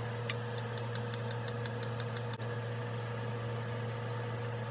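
Steady low hum of a small motor running, with a quick even run of about a dozen light ticks in the first two seconds.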